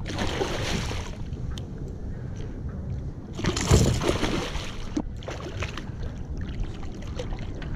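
A hooked bluefish thrashing and splashing at the water's surface beside a kayak, in two bursts, the louder one about three and a half seconds in, with smaller splashes between.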